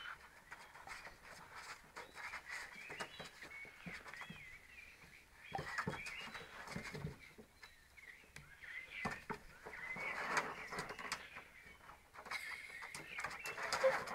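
Springer spaniel puppies yipping and whining in short, high squeaks as they play, with scattered short knocks in between.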